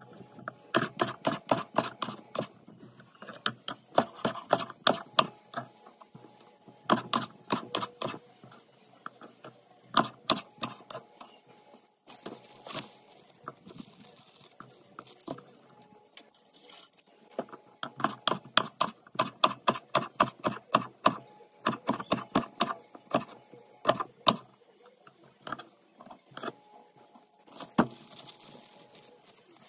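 Kitchen knife chopping tomatoes on a wooden cutting board: quick runs of sharp knocks, several a second, with pauses between the runs. Near the end a plastic bag rustles.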